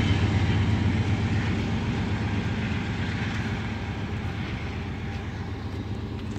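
BNSF diesel locomotive running with a steady low engine drone, its freight train rumbling along the rails, fading steadily as it moves away.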